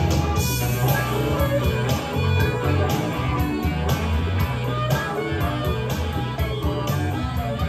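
Guitar music played back from a cassette just recorded on a Nakamichi Dragon deck, a test of the restored deck that its restorer judges a clean recording with no issues.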